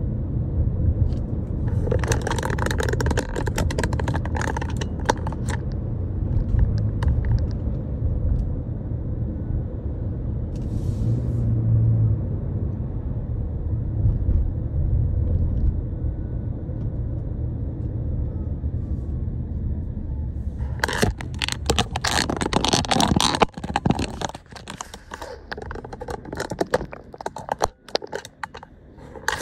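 Car interior noise while driving: a steady low road and engine rumble. Bursts of clicks come about two seconds in and again about twenty seconds in. The rumble drops away in the last few seconds as the car slows to a stop behind the vehicle ahead.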